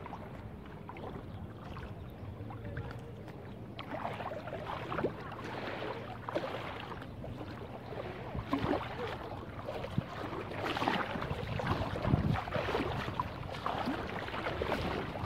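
Shallow seawater splashing and sloshing around the legs of a person wading, in irregular bursts that grow louder over the second half, over a steady low rumble.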